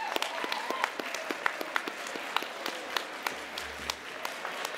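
Audience applauding, the separate hand claps plainly distinct rather than a dense roar.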